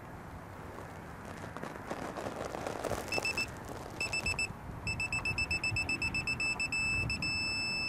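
Digital torque wrench beeping as it tightens a semi truck's hub spindle nut to 200 foot-pounds. Short high beeps start about three seconds in, come faster, and turn into one steady tone near the end as the set torque is reached.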